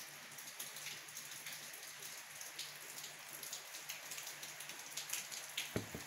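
Heavy rain heard from indoors: a faint, even hiss with irregular drop ticks. A few soft knocks near the end.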